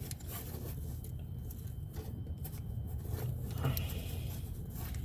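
Faint scraping and handling noises as a stuck crankshaft position sensor is worked loose from the engine, over a steady low rumble.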